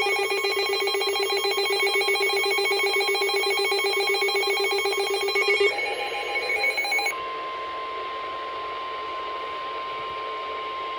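Weather radio alert: for about six seconds a loud, harsh alarm pulses very fast, ringing like a telephone bell. About seven seconds in it gives way to the steady single-pitch NOAA Weather Radio warning alert tone, quieter and heard through static from poor reception.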